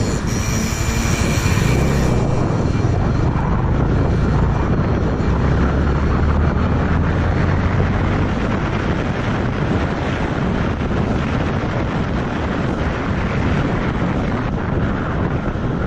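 Motorcycle engine running under way with wind rushing over the camera's microphone, a steady low drone as the bike picks up to about 25 mph. A faint high whine fades out about two seconds in.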